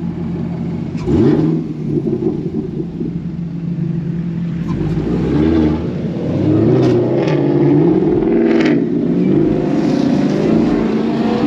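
Chevrolet Camaro ZL1 1LE's supercharged 6.2 L V8 accelerating hard. Its engine pitch surges about a second in, then rises and falls several times as it revs through the gears, and it gets louder toward the end.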